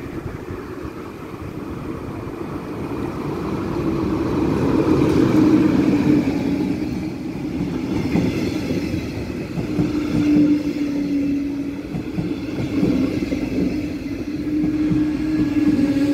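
Train running on the tracks, growing louder over the first six seconds, with a dense rumble and a hum that comes and goes.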